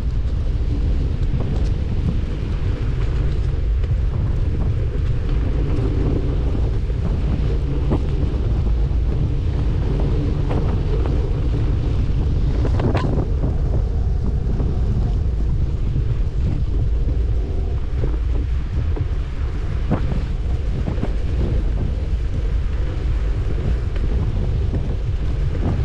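Wind buffeting a GoPro microphone on a moving bicycle: a loud, steady low rumble, broken by scattered clicks and knocks, the strongest about halfway through.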